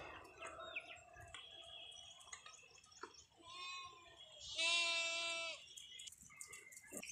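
Sheep and goats in a flock bleating: a few faint calls in the first seconds, then one loud bleat lasting about a second, about four and a half seconds in.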